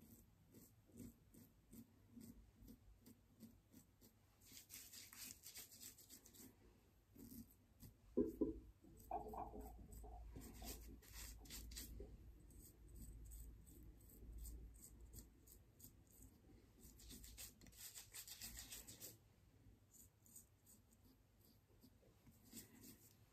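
Faint scraping of a double-edge safety razor through lathered beard stubble, in short rapid strokes that come in several runs. There is a brief louder knock about eight seconds in.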